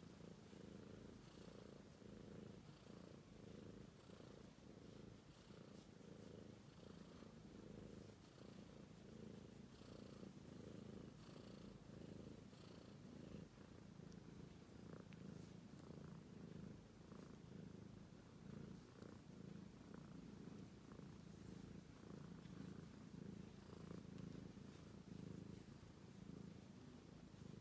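British Shorthair kitten purring softly and continuously while asleep and being stroked, a low, steady, pulsing purr.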